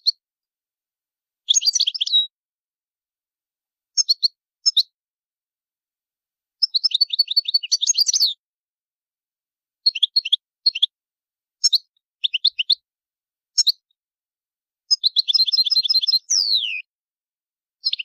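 European goldfinch giving loud territorial calls: bursts of short, sharp, high twittering notes, about seven bursts with silent gaps between them. Near the end comes a drawn-out falling note.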